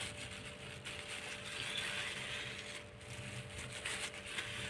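Faint rustling of a thin plastic food glove as a gloved hand sprinkles fried shallots onto a plate, swelling slightly in the middle, over a steady faint hum.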